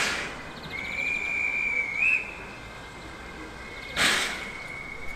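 Narrow-gauge steam locomotive at a station: two short, loud bursts of steam hiss about four seconds apart. Between them, and again after the second burst, a high steady whistle tone sounds for about a second.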